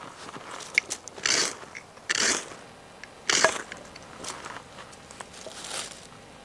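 Fire steel (ferro rod) struck with the squared-off spine of a Blind Horse Knives Bushcrafter knife: a series of short, sharp scrapes, roughly a second apart, throwing sparks to light feather-stick curls.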